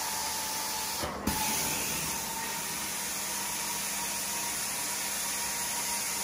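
Hot-water carpet extraction wand working over wet carpet: a steady rushing hiss of suction and spray with a faint steady whine. About a second in, the hiss briefly cuts out and surges back.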